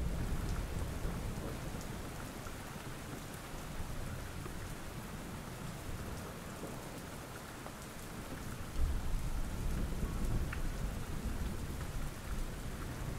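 Steady rain, with a low rumble of thunder rising about nine seconds in.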